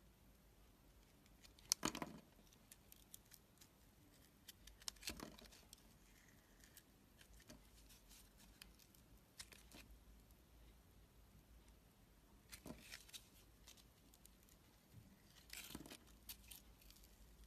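Crisp crackling scrapes of a utility-knife blade slicing through a glitter-coated block. They come in a few short bursts several seconds apart, loudest about two seconds in, with faint room hush between.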